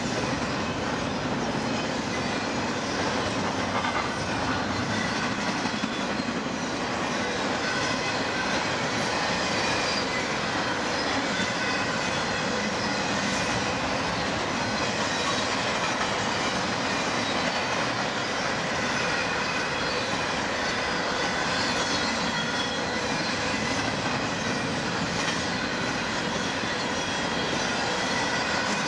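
BNSF freight train cars rolling past at steady speed: continuous wheel-on-rail noise with clickety-clack from the rail joints and a thin, high wheel squeal.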